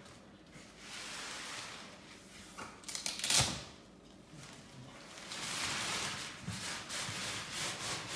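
A padded fabric carry bag rustling and rubbing as it is pulled down off a folded portacot, with one short, louder rip-like scrape about three seconds in and continuous rubbing over the last few seconds.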